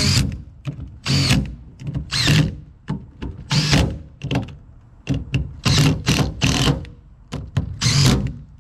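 Cordless drill-driver spinning the cover-plate screws of an LS oil pump in short trigger bursts, about seven times.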